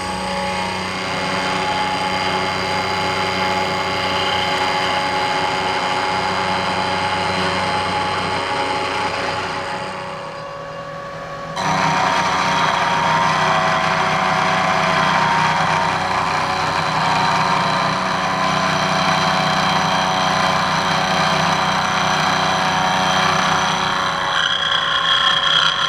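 End mill on a manual milling machine taking roughing cuts about 1/8 inch deep in an aluminum bracket: steady spindle whine and cutting noise as the chips fly. The sound dips briefly about ten seconds in, then runs steadily again.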